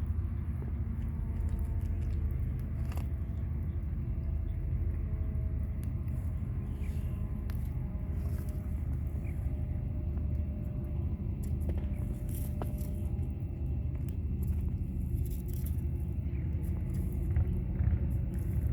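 Small wood campfire crackling, with scattered sharp snaps and pops, over a steady low rumble.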